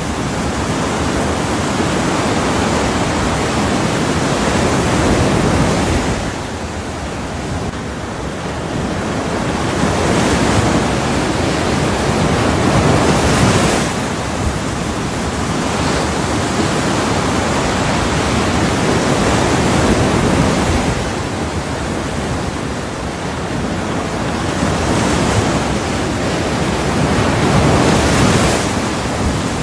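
Ocean surf: a steady rush of noise that swells and eases every several seconds as waves break and wash back.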